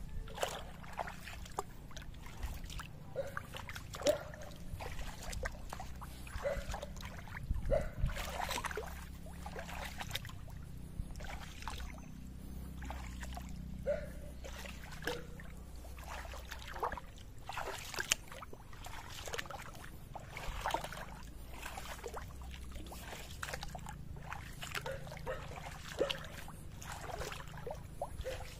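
Water splashing and trickling in small, irregular splashes over a low steady rumble.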